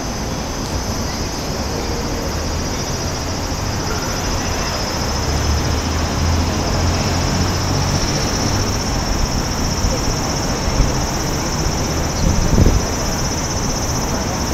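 Wind buffeting the microphone outdoors: an uneven low rumble that swells around the middle, over a steady high-pitched hiss.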